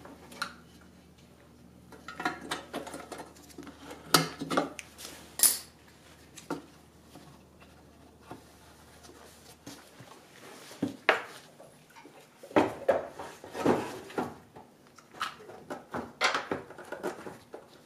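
Scattered clicks, taps and light clatter of a plastic headlight assembly being handled as a bulb and rubber dust cap are fitted into its housing and the headlight is set into the car's front end. The knocks come more often toward the end.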